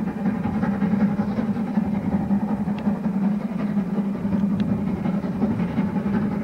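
Polish Railways Ty2 class 2-10-0 steam locomotive working a train towards the listener with its cylinder drain cocks open, a steady, continuous running sound.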